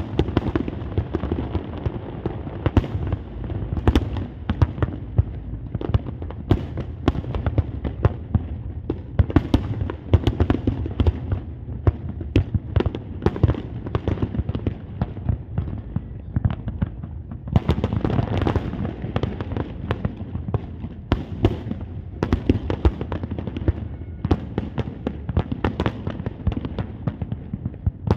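Fireworks display in full salvo: many sharp bangs and cracks following each other rapidly and overlapping, over a continuous low rumble of booms.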